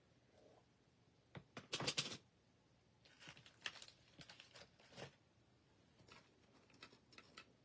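Faint handling noises of craft supplies on a tabletop: a cluster of sharper clacks about two seconds in as a jar of white chalk paste is set down, then scattered light taps and rustles as things are moved about.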